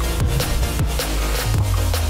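Electronic dance music with a heavy beat: deep bass hits that drop in pitch, over a steady low bass, with a held low bass note coming in about halfway through.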